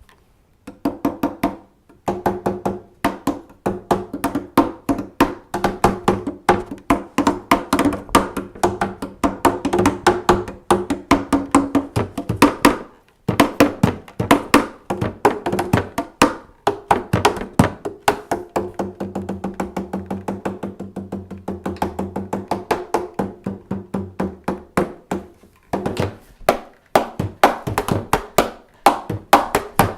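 WalkaBout wearable hand drum played with bare hands: a fast, busy rhythm of strokes mixing sharp slaps with deeper pitched tones. It breaks off briefly about two seconds in and again about thirteen seconds in.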